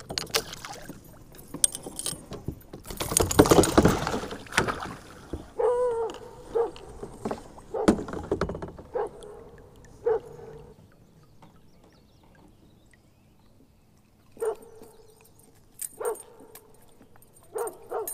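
A hooked fish splashing and thrashing at the surface beside a kayak as it is brought in, loudest about three to four seconds in. Later come several short, pitched calls, a second or two apart.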